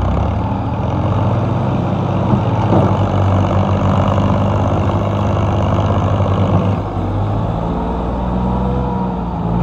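Massey Ferguson 360 tractor's diesel engine labouring under a heavy load as it pulls a loaded trolley out of soft ground, with a second tractor's engine running behind. The engine sound eases a little about seven seconds in.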